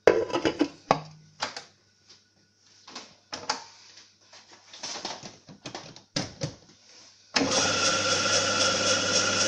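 Knocks and clatter of plastic parts as the roller holder and clear lid are fitted onto a stone melanger. About seven seconds in, the melanger switches on and runs steadily with a constant hum, its stone rollers grinding chocolate in the steel bowl.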